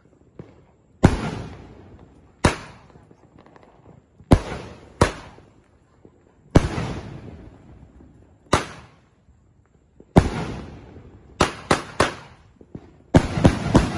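Aerial shells from a 500-gram, 12-shot consumer firework cake with 1.5-inch tubes bursting with loud bangs, each ringing out and fading. The bangs come one every second or two, then bunch into a rapid cluster of several near the end.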